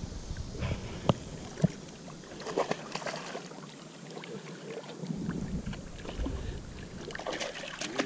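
Creek water splashing and sloshing as a hooked smallmouth bass thrashes at the surface and the angler wades in to land it, with two sharp clicks a little after one second in.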